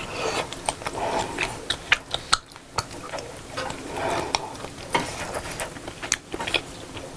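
Close-miked eating: chewing and wet mouth sounds from a bite of Korean army stew (budae-jjigae), with irregular sharp clicks and taps as wooden chopsticks knock against the bowl and the metal pot.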